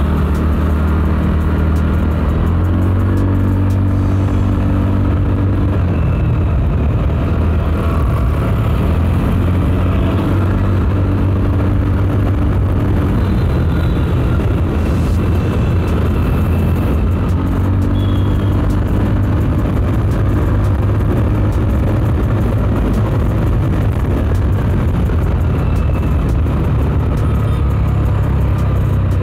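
Motor vehicle engine running steadily, its low pitch holding and then shifting every few seconds as the revs change.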